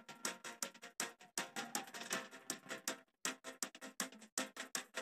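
Faint background music of a TV news bulletin: a quick ticking beat of about five or six strokes a second under held notes, breaking off briefly a few times.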